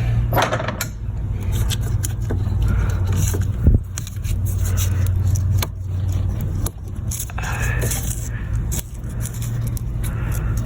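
A screwdriver and hands prying and wiggling a clipped-on piece loose in a cramped engine bay: scattered scrapes and clicks, with one sharp click about four seconds in, over a steady low hum.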